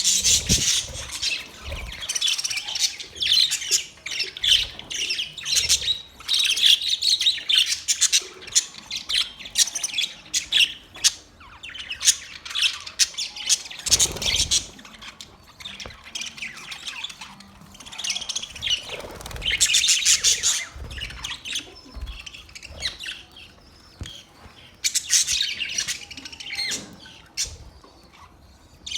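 Budgerigars chattering, with rapid high chirps and squawks in bouts separated by brief lulls.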